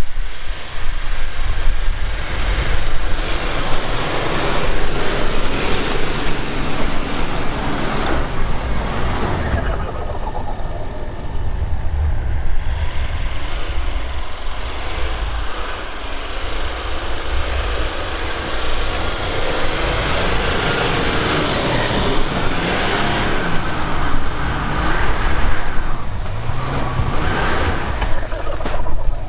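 Land Rover Discovery 3 engine running under load as it climbs a snowy slope, its tyres churning and spinning in deep snow.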